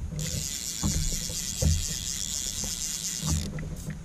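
Fishing reel whirring for about three seconds, starting and stopping abruptly, as a hooked fish is played from a small inflatable boat. Soft low knocks underneath.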